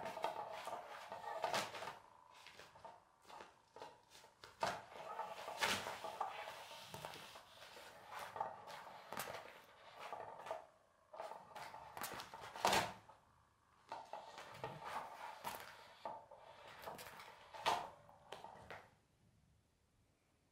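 Electronic cat toy's small motor whirring under its nylon cover, with repeated rustles and scrapes of the fabric as the cat paws at it. The whirring pauses briefly twice and stops near the end.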